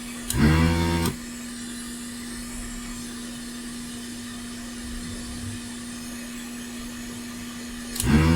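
Desoldering gun's vacuum pump buzzing in two short bursts of under a second each, about eight seconds apart, over the steady rush of a hot air station's blower. The gun is not clearing the solder, which the repairer puts down to a clogged nozzle.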